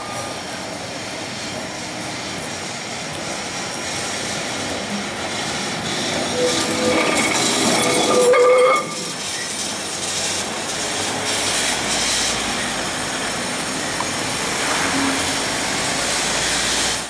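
Carris historic tram No. 559, a Remodelado streetcar, running along its street rails with a steady rumble. A few seconds before the middle, as it passes close by on the curve, its steel wheels give a high, steady squeal that is the loudest part and cuts off suddenly.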